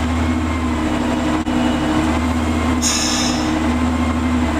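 Vintage Plymouth chain-driven industrial locomotive's engine running steadily while standing in low gear. A short hiss comes about three seconds in.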